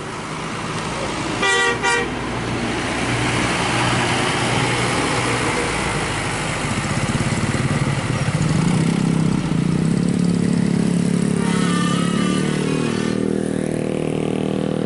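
Two short horn blasts from an Imas Putra Jetbus 3+ tour bus as it passes, then the bus's engine running as it pulls away. Later a motorcycle engine runs close by, with a brief warbling horn-like tone near the end.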